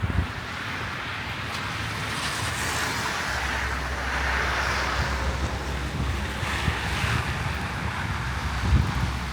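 Storm wind gusting, a rushing noise that swells toward the middle and eases off, with wind buffeting the microphone as a low rumble from about three seconds in.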